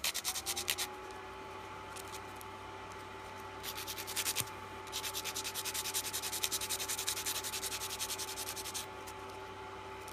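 Hand nail file rasping quickly back and forth over a hardened acrylic dip-powder nail, shaping it, in spells of rapid strokes broken by short pauses. A steady low hum starts at the beginning, rising briefly in pitch and then holding.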